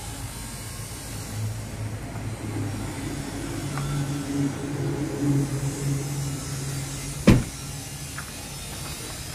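A Maruti Suzuki Swift Dzire's power window motor hums for several seconds, its pitch stepping up partway through. Then a car door slams shut about seven seconds in, the loudest sound here.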